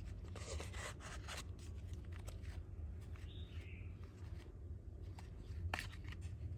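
Faint rubbing, scratching and a few light clicks from a Zippo lighter being handled, over a steady low hum.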